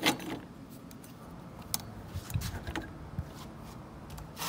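Scattered clicks and knocks of metal parts being handled as the handlebar and its clamp bolts are set back in place on a quad, the sharpest click at the very start and a couple of duller thumps midway.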